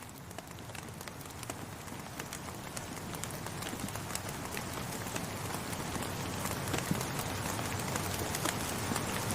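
Steady rain with many close, individual drops pattering, growing steadily louder as it fades in.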